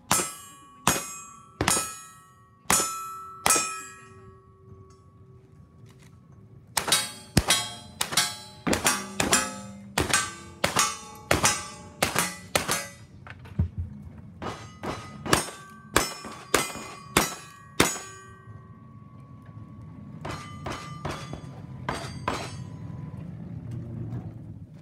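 Strings of rapid gunshots, each followed by the ringing of steel targets being hit: seven shots, a pause, a quick string of about fourteen, then two more strings of about six. A low rumble builds near the end.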